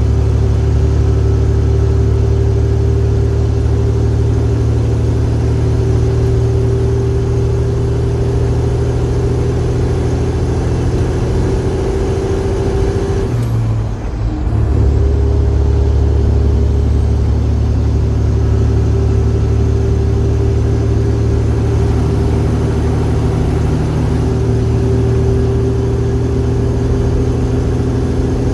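Detroit Diesel Series 60 12.7-litre inline-six diesel pulling steadily under a heavy load of about 135,000 lb. About halfway through it drops off briefly during a gear change, then picks back up and pulls on.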